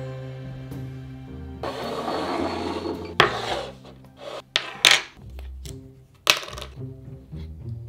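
Background music with steady sustained notes over kitchen handling noises: a scraping rub about two seconds in, then a few sharp knocks of a small ceramic ramekin and a spice jar set down on a wooden butcher-block board.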